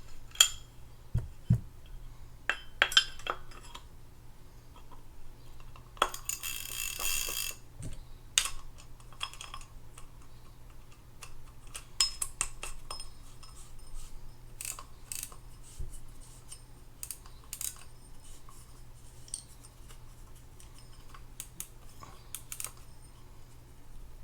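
Small metal parts of a Penn Spinfisher 8500SS spinning reel clicking and clinking as the reel is reassembled and handled. There is a short rasping whir about six seconds in.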